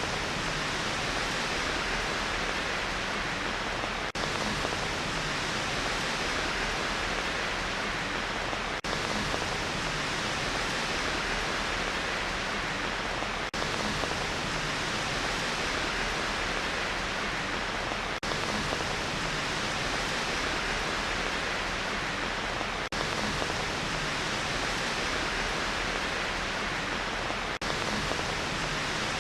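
Steady rain sound, an even hiss with no separate drops standing out, broken by a brief dip in level about every four and a half seconds.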